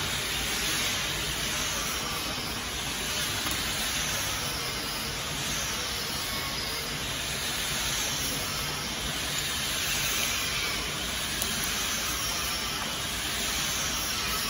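Steady, even hiss of rushing air noise with no distinct knocks or clicks.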